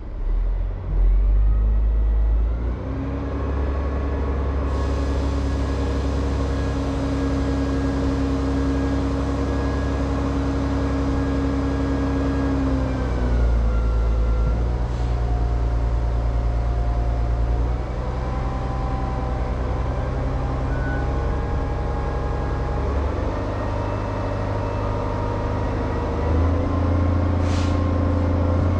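Log truck's diesel engine running while parked, its speed stepping up about two seconds in, dropping back around the middle and rising again near the end. A short hiss of air near the end.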